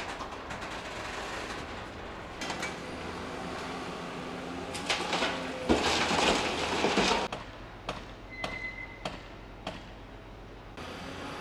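Railway station sounds: rail vehicles running, with scattered clicks and a loud rushing stretch about halfway through that stops abruptly.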